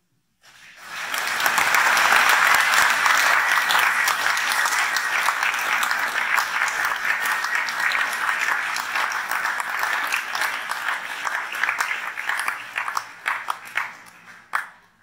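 Audience applauding. The applause starts about half a second in, holds steady and loud, then thins to scattered claps and stops just before the end.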